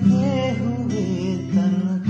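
Music: acoustic guitar strumming chords, with new strums at the start and about one and a half seconds in, and a wavering higher melody line above.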